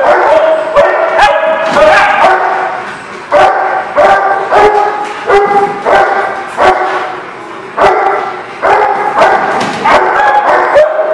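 A dog barking repeatedly in play, a string of loud, pitched barks about one or two a second, in short runs with brief pauses.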